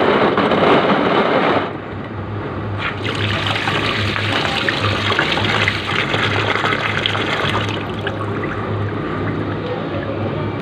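Water running from a tap and splashing, with a heavier gush in the first second and a half, then a steady flow. A steady low hum runs underneath.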